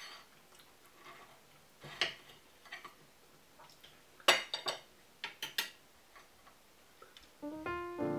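Steel knife and fork clicking and scraping against a ceramic plate while a tart is cut. There are a few single clinks early on and a quick cluster of sharper clinks around the middle. Piano music starts near the end.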